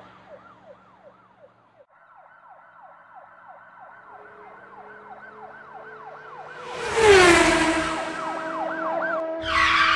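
Emergency vehicle siren in a fast yelp: a rising-and-falling wail repeating about two to three times a second, faint at first and growing louder. About seven seconds in comes a loud rush with a falling tone, and a second loud burst follows just before the end.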